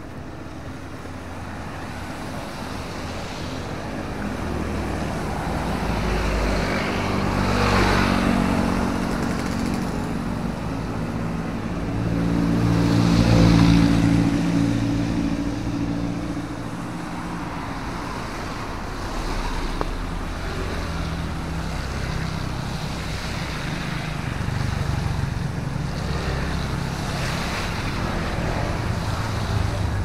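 Road traffic passing on a wet road: cars and motorcycles go by one after another, their engine hum and the hiss of tyres on wet asphalt swelling and fading, loudest about 8 and 13 seconds in, with another pass near the end.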